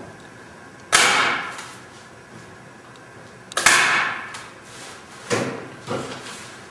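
Staple gun firing twice, two sharp snaps about three seconds apart, driving staples through canvas into a wooden stretcher frame, followed by a few softer knocks near the end.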